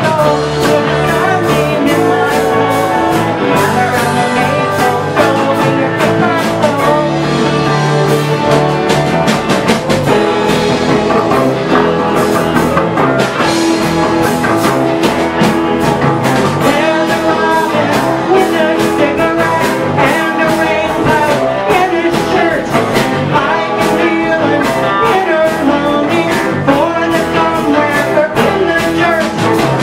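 Rock band playing: guitars over a steady drum beat.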